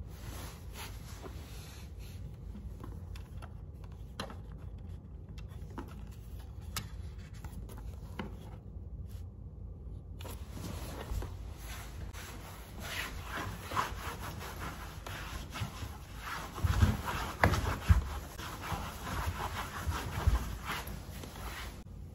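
Sticker paper being cut and handled on a wooden floor close to the microphone: scratchy rubbing and rustling that grows busier in the second half, with several dull thumps against the floor in the last third.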